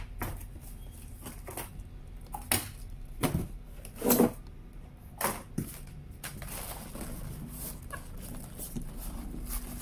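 Cardboard box flaps and plastic packaging handled by hand: a few short rustles and scrapes, the loudest about four seconds in.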